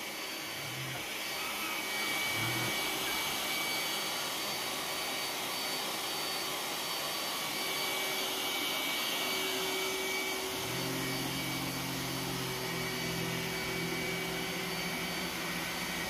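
iRobot Roomba s9 robot vacuum running on thick carpet: a steady whir with a thin high whine as it works to free itself from carpet too thick for it. About ten seconds in, a lower steady hum joins in.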